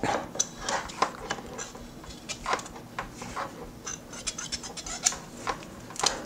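A curling iron being worked through hair: scattered small clicks and rustling as the iron's clamp and barrel are handled in the hair, several a second, unevenly spaced.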